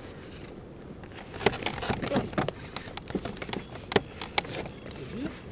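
Water lapping against a plastic kayak hull, with a run of irregular sharp clicks and knocks from fishing gear handled on the boat, loudest about a second and a half in and again about four seconds in.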